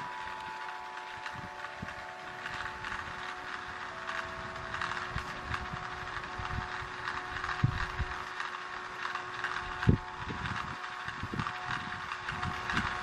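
Outdoor background: a steady hiss with a few held tones that come and go, broken by scattered low thumps, the loudest about ten seconds in.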